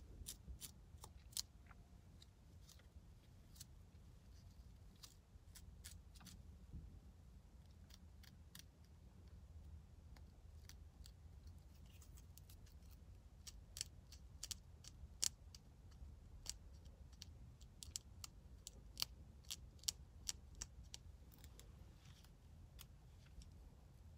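Fine-tooth plastic comb scraping dandruff flakes off the scalp along the parts between braids: short, sharp scratchy clicks at an irregular pace, thicker in the second half, over a low steady hum.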